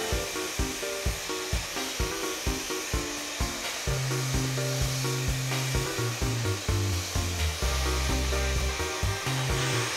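Hand-held blow-dryer blowing steadily under background music with a steady beat and bass line.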